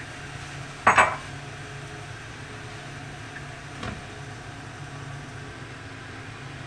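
Kitchen cookware sounds: a sharp metallic clink with a brief ring about a second in, and a lighter knock near four seconds. Under them runs a steady low rumble from the lidded wok of fish soup boiling on a high gas flame.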